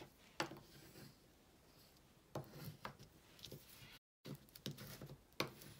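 Quiet handling of craft supplies on a work table: a few light, separate taps and clicks. The sound cuts out completely for a moment about four seconds in.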